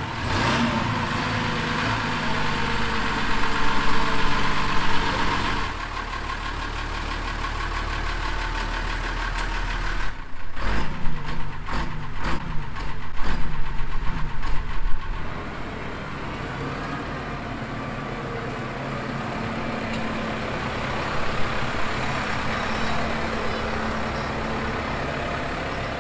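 Old red tipper truck's engine running at idle. About ten seconds in, a rougher, uneven stretch of clattering lasts several seconds before the steady idle returns.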